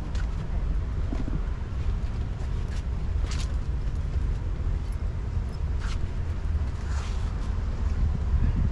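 Wind buffeting the microphone: a steady low rumble, with a few faint short ticks.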